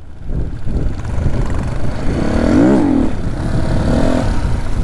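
Dirt bike engine running on the move, with one short rev up and back down about two and a half seconds in.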